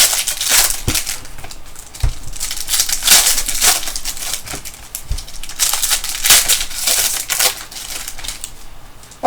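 Foil wrappers of Prizm trading card packs being torn open and crumpled: an irregular crinkling and crackling, with a few soft knocks at about one, two and five seconds in.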